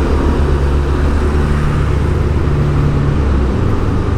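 Motorcycle engine running at low speed in slow traffic, a steady low hum over road and wind noise, its note shifting about three and a half seconds in.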